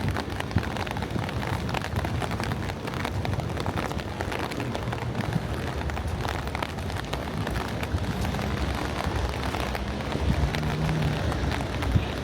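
Steady rain falling, with many small drops ticking on surfaces. A faint low hum comes in about two-thirds of the way through.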